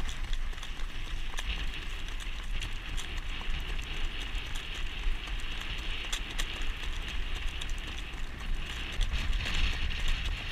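Hooves of a harness horse trotting on a paved road, a quick run of clip-clops heard from the jog cart behind it, over a steady low rumble of wind on the camera.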